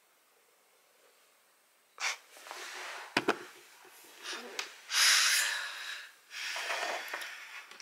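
Silent for about two seconds, then a woman's breathy, unvoiced laughter in several puffs of breath, with a couple of short clicks near the middle.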